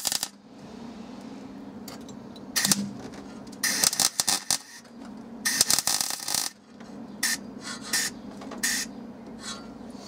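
Harsh, crackly bursts of metalworking on the car's sheet-steel panel, repeated every second or so, some about a second long and some shorter, with a steady low hum underneath.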